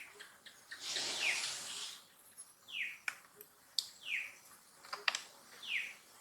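A series of short, high animal calls, each falling sharply in pitch, repeated about every second and a half, with a few sharp clicks between them.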